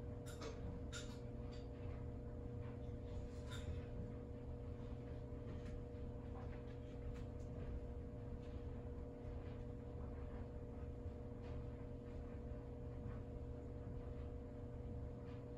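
Quiet indoor room tone with a steady electrical or appliance hum and a few faint ticks in the first few seconds.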